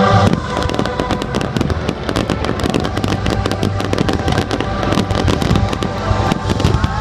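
Fireworks display bursting overhead: a dense, irregular barrage of sharp bangs and crackles, with music playing underneath.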